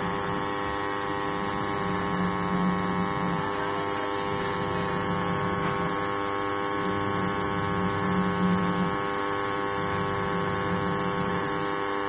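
Wash motor of a Videocon semi-automatic washing machine running with a steady electrical hum, a lower tone swelling every two to three seconds. The wash is working again after a rat-chewed wire was rejoined.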